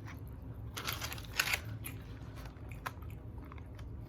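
Eating sounds close to the microphone: a few short crunching noises from biting into chicken wings about a second in, then a small click near the three-second mark.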